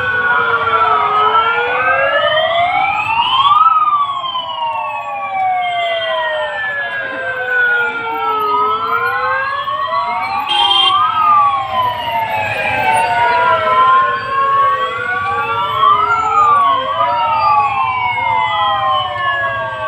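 Several police vehicle sirens wailing at once and out of step with each other, each one slowly rising and falling in pitch over a few seconds.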